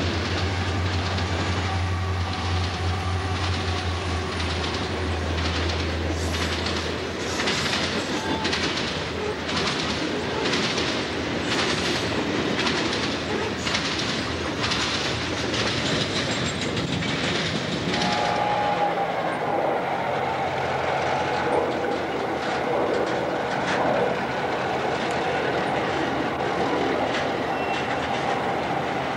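Diesel freight train passing close by. The locomotives' engines give a steady low hum for the first several seconds, then the covered hopper cars roll past with a clickety-clack of wheels over rail joints, about two beats a second. About two-thirds of the way through the sound changes to a Soo Line GP-series locomotive moving slowly with intermodal cars, with steady ringing metallic tones over its running engine.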